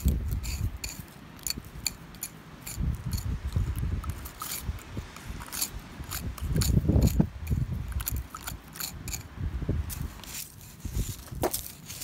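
Screwdriver blade digging and scraping in dry, gravelly soil to pry out weeds: a quick run of scratchy clicks and crunches, with a few low thuds.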